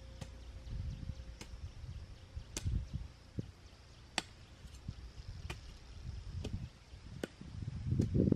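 A long-handled hoe chopping into and dragging through garden soil: dull thuds every second or two, the loudest near the end, with sharp clicks in between.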